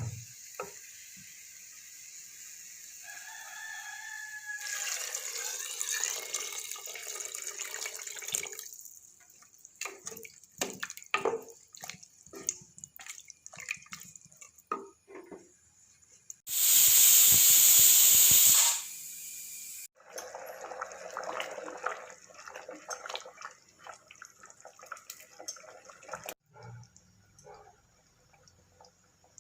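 Water running and splashing, with a run of clinks and knocks, and a loud two-second rush of noise just past halfway.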